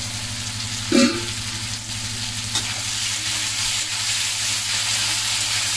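Cubes of sweet pumpkin sizzling as they fry in oil in a steel kadai, with a metal spatula stirring and scraping through them; a single knock about a second in. The pumpkin has fried through and is ready for water to be added.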